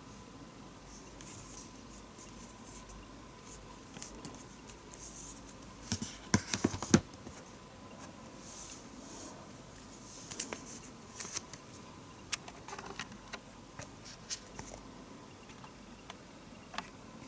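Hands handling product packaging: scattered scratches and rustles, with a quick run of loud, sharp clicks or taps about six to seven seconds in.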